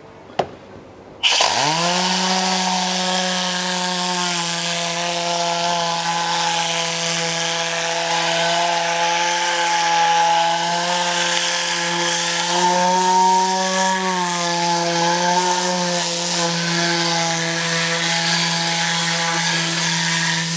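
Tornador air-powered cleaning gun, trigger pulled about a second in, spraying through its whirling nozzle onto fabric door trim. It makes a loud hiss with a steady buzzing tone that sweeps up in pitch as the nozzle spins up and then holds.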